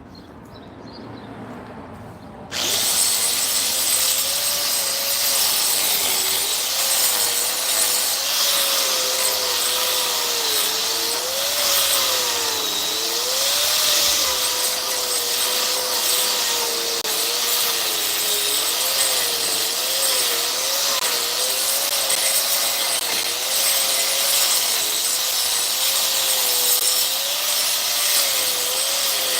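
A power tool motor starts about two and a half seconds in and runs continuously, with a steady hiss and a motor pitch that wavers up and down.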